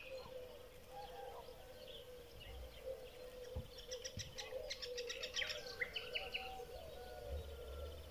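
Birds chirping, with a burst of quick high trills in the middle, over a faint steady drone.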